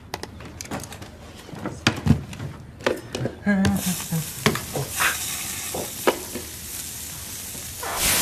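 Several sharp clicks and knocks of a laptop being typed on and handled. From about four seconds in, a steady sizzling, crackling hiss like food frying takes over and grows louder near the end.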